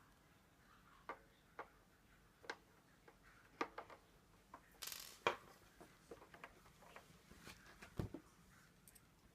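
Faint, irregular clicks and light taps, about a dozen spread over several seconds, with a short hiss about halfway through; there is no steady motor sound.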